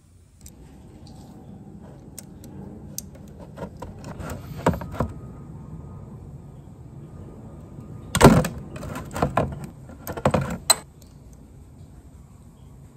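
Metallic clinks and clicks of a 10 mm socket and extension bar being fitted to and turned on the engine oil check bolt, slightly loosening it to check for oil seep. Scattered light clicks, then a louder run of clanks about eight to eleven seconds in.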